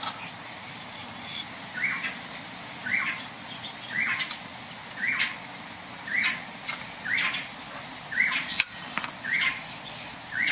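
A bird calling over and over, a short chirp about once a second, with a few small metallic clicks as loose bicycle parts are handled.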